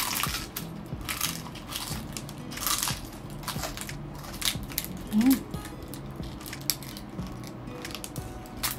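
Crisp deep-fried pork intestine (chicharon bulaklak) crunching between the teeth as it is bitten and chewed, in a string of sharp crunches every second or so.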